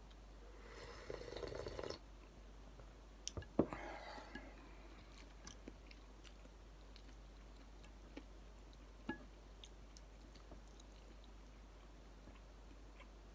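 A person sipping noodle-soup broth from a lifted bowl for about a second, then a couple of sharp knocks about three and a half seconds in, followed by faint chewing and small clicks.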